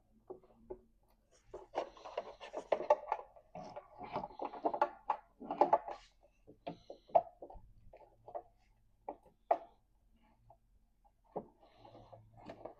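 Hard plastic turn signal parts being handled and pushed into a new housing: a rapid clatter of clicks and rattles, then scattered single clicks.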